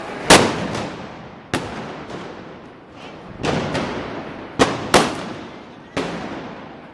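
Gunpowder bangs going off one after another at uneven intervals, about eight in all, each with a long echoing tail; the loudest comes about a third of a second in.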